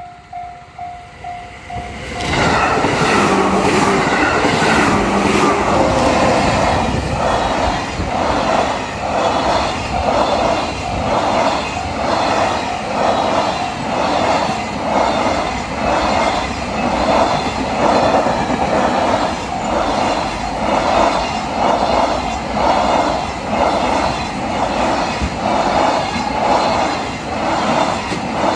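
A Japanese level-crossing bell rings in a steady pulse of about three rings every two seconds. About two seconds in, trains arrive and run loudly past the crossing for the rest of the time: a long freight train hauled by an EF210 electric locomotive, overlapped by a 213 series electric train. Wheels clatter over the rail joints and the crossing bell keeps ringing underneath.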